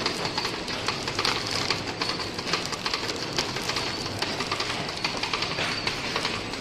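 Noodle packaging machine running, wrapping bundles of dried stick noodles in plastic film: a steady, rapid mechanical clatter of many small clicks and rattles.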